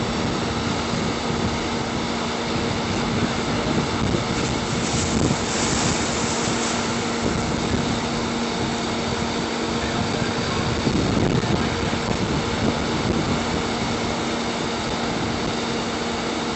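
A heavy engine running steadily, a constant hum under an even rushing noise.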